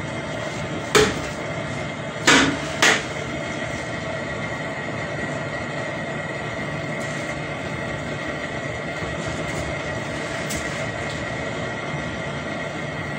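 A kitchen knife cutting through a yellow yam and knocking on a ceramic plate: three sharp knocks about a second in and again at two to three seconds, over a steady hum.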